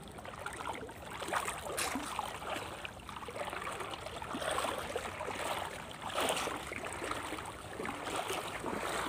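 Water lapping and splashing against a small boat at sea, in irregular washes that swell and fade every second or two.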